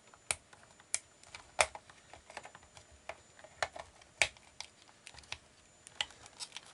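Irregular sharp clicks and taps of a backup battery being snapped onto its clip connector and handled in a clock radio's battery compartment, with a few louder clicks among lighter ones.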